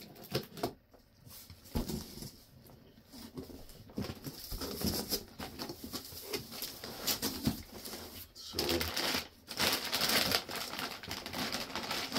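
Packaging of car suspension parts being handled and unwrapped: rustling and crinkling with scattered clicks and knocks, the crinkling louder and more continuous from about eight and a half seconds in.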